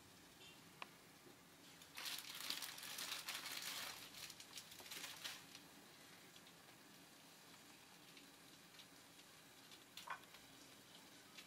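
A plastic packet crinkling and tearing for about three seconds, starting about two seconds in, with a short click before it and another near the end.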